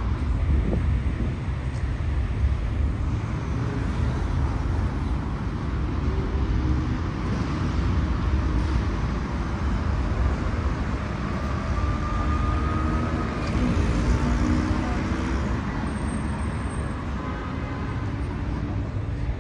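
Steady city road traffic: cars and vans passing on a busy street, a continuous low rumble of engines and tyres.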